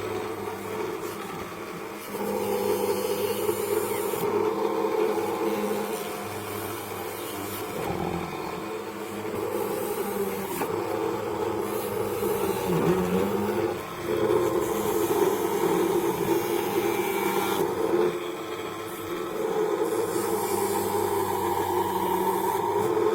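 A small homemade machine running steadily as it works old sandal foam into fishing floats, its sound easing off and coming back several times.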